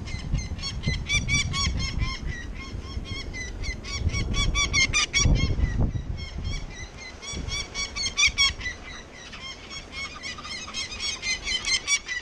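Adult peregrine falcon giving its harsh, rapid kak-kak-kak alarm call, about four to five calls a second in long runs, as it scolds an intruder at its nest ledge. A low wind and handling rumble runs underneath, strongest about halfway through.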